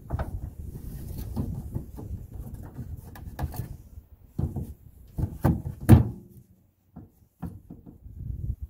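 Wooden board knocking and scraping against a pickup truck bed as it is shifted into place by hand, with a string of knocks and one loud knock about six seconds in.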